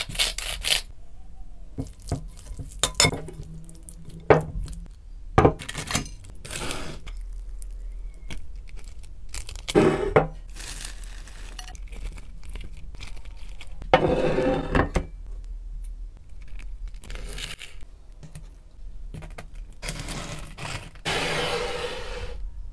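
Kitchen food-prep sounds: a pepper mill grinding briefly at the start, then a string of sharp clicks and knocks of utensils and dishes, with longer crunchy rustling bursts about fourteen seconds in and again near the end.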